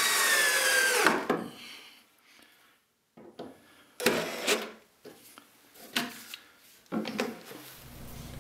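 Cordless drill driving 2-inch deck screws into plywood and a wooden cleat: a long run at the start whose whine drops in pitch as the screw seats, then a short burst about four seconds in and smaller, briefer bursts after it.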